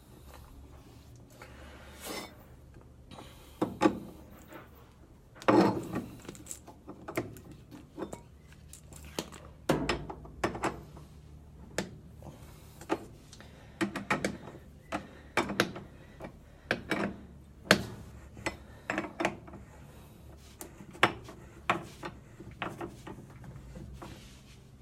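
Irregular metal clicks and knocks from hand work on a washing machine's transmission, as the pulley is fitted back onto the shaft over a newly replaced drive ratchet. The loudest knocks come about five and a half and ten seconds in.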